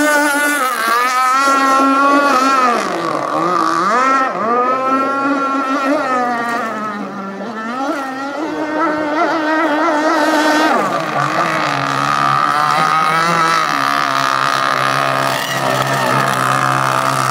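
Radio-controlled racing boat's motor at speed, its note rising and falling repeatedly as the throttle is worked through the turns, then holding steadier near the end.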